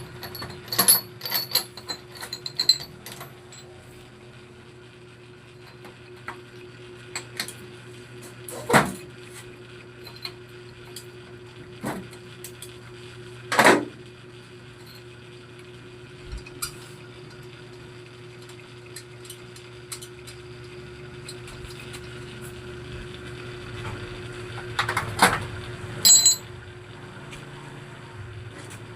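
Metal tools and parts clinking and knocking now and then, with a few sharper single knocks, over a steady low hum.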